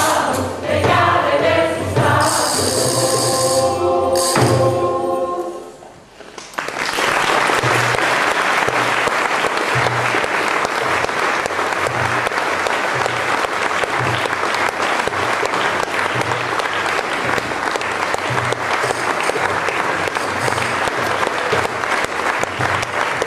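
A mixed choir sings the last phrases of a song, with a tambourine jingling, and the final chord dies away about six seconds in. The audience then breaks into steady, sustained applause.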